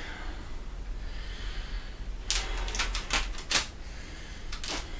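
Handling of a steel adjustable wrench in its wrap: a quick run of short, sharp clicks and rustles about two and a half seconds in, then two more near the end.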